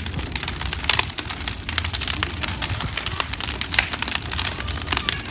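Wood bonfire crackling, with many sharp irregular pops and snaps over a low rumble.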